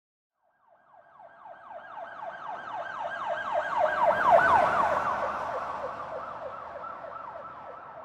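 A siren in a fast yelp, each sweep quickly falling in pitch and repeating in quick succession. It swells up out of silence, peaks about halfway through, then slowly fades, as if passing by.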